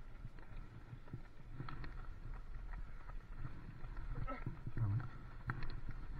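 Bicycle rolling along a wet tarmac lane, heard from a camera mounted on the bike: a low rumble with irregular knocks and rattles from the bike over the road surface, and a louder thump about five seconds in.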